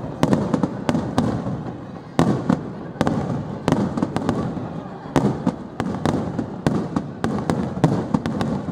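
Aerial firework shells bursting in quick succession: sharp bangs roughly every half second to a second, each trailing off in a rolling echo.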